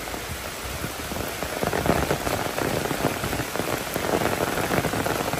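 Very hard rain falling through forest, a dense rush of countless close drop hits, growing louder about a second and a half in.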